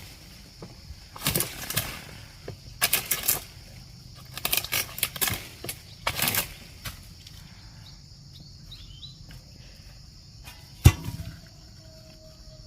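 Oil palm harvesting: four groups of rough rustling, swishing bursts in the first six seconds, fronds being cut and moved, then one heavy thud about eleven seconds in. A steady high insect buzz runs underneath.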